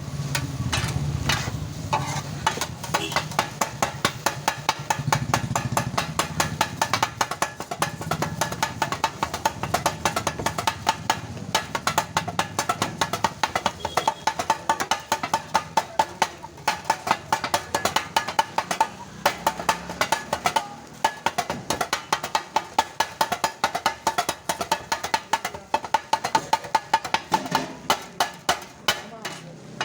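Kothu parotta being chopped on a cast-iron tawa: two flat metal blades strike the griddle in a fast, steady clanging rhythm, several strikes a second, with a light metallic ring.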